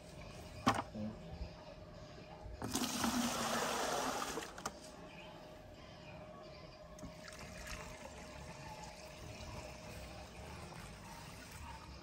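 Pesticide mix poured from a plastic bucket into a crop-spraying drone's tank, a splashing gush lasting about two seconds, starting around three seconds in. A single sharp knock comes near the start.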